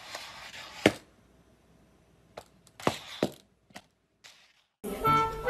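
A few sharp knocks and clacks on a hard tiled floor in a small room, the loudest about a second in and a quick cluster of lighter ones a couple of seconds later. Music with a clarinet starts near the end.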